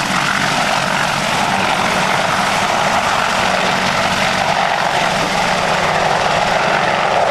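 AgustaWestland Apache AH Mk.1 attack helicopter lifting off and flying low nearby. Its twin RTM322 turboshaft engines and rotors make a loud, steady noise throughout.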